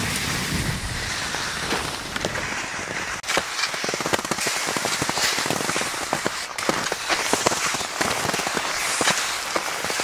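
Skis sliding over crusted snow, with a dense run of crunching clicks and crackles. Wind rumbles on the microphone for the first three seconds or so, then dies away.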